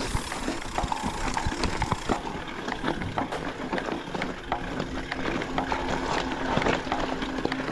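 Mountain bike rolling down a rocky trail of loose stones: a continuous clatter of small knocks and rattles as the tyres run over rocks and the bike shakes.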